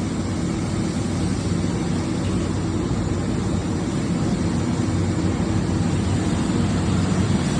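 Hurco VMX64i vertical machining center running a steady mechanical hum while it homes and calibrates its X and Y axes.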